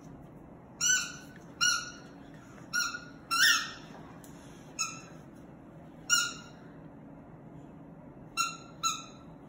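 A squeaky dog toy squeaking about eight times at irregular intervals as two Labradors mouth and tug it. The squeaks are short and high, and one about three and a half seconds in is longer and rises in pitch.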